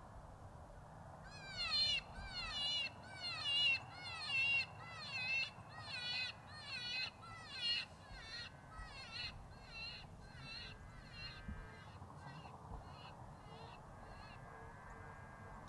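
A coyote predator call sounding a repeated high, wavering distress cry, a little more than once a second. It is loud at first and grows fainter after about eight seconds.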